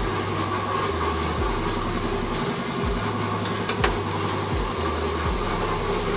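Steady mechanical hum with a low rumble, with a brief metallic clink a little over halfway through.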